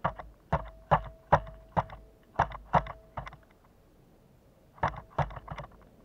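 Pileated woodpecker pecking at suet in a wire cage on the feeder: a run of sharp knocks, about two or three a second, several leaving a brief ringing tone, then a pause and three more knocks near the end.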